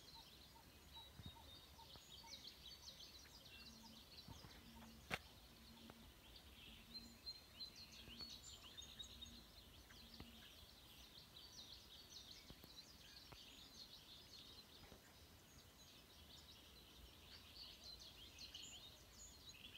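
Faint chorus of small birds chirping and twittering, with one sharp click about five seconds in.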